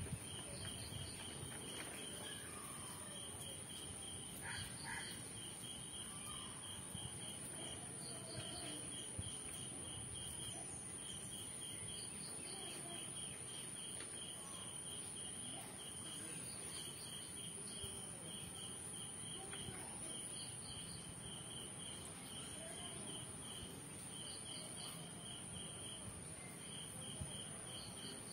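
Insects chirping steadily: a continuous high-pitched trill and a rhythmic chirp of about four pulses a second in runs. Underneath is a faint, even sizzle of a neyyappam deep-frying in coconut oil.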